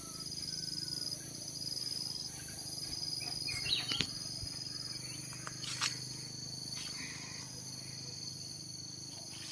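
A steady, high-pitched insect chorus of several unbroken overlapping trills, with a low steady hum beneath it. A few sharp clicks come around the middle.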